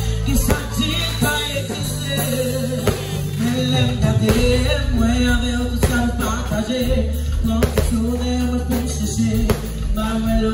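Live band music with a woman singing lead over bass, drums and percussion.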